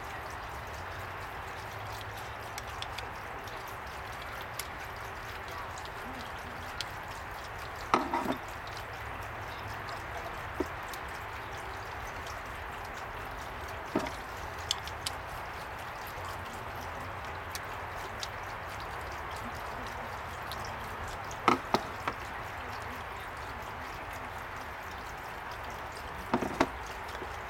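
A steady hiss, broken by a few sharp clicks and knocks of a screwdriver and a brass hose-end fitting being worked by hand, the loudest a quick double knock about 21 seconds in.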